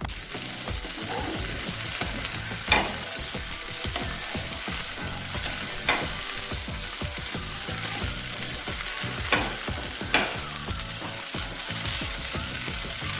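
Mashed mustard greens sizzling as they fry in a pan, stirred and pressed with a spatula, with four sharp knocks of the spatula against the pan.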